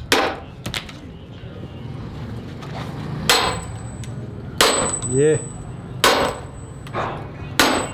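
Sledgehammer blows on steel wedges driven into a log to split it: five heavy strikes, roughly one every one and a half seconds.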